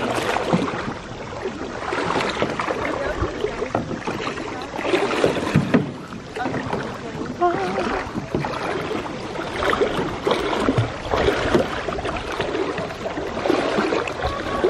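Kayak paddles dipping and splashing, with water sloshing against the hull of a clear kayak, in an uneven run of strokes.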